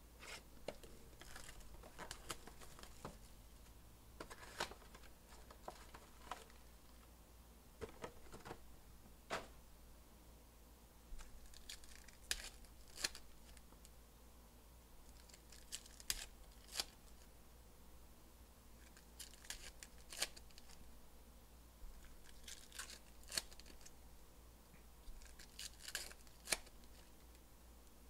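Foil wrappers of 2021 Donruss Elite football card packs being torn open and crinkled, faint, in scattered clusters of sharp crinkles and rips, as cards are pulled from the packs.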